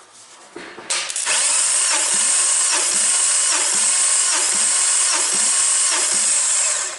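A power tool whirs loud and steady as it spins over a Volvo B5244S 2.4-litre five-cylinder engine for a compression test on the fourth cylinder, with a beat about twice a second as the cylinders come up on compression. It starts about a second in and stops just before the end.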